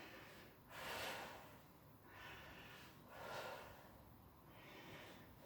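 Faint, heavy breathing of a person exercising: a forceful breath out about every two seconds, the rhythm of someone doing reverse crunches and exhaling at the top of each lift.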